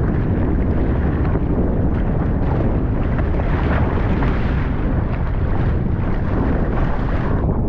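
Strong wind buffeting the kayak-mounted camera's microphone, a loud steady low rumble, with splashing from the paddle strokes and spray mixed in.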